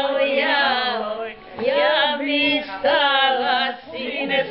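A small group of older women and a man singing a Serbian song together, held notes sliding between phrases, with short breaths between lines.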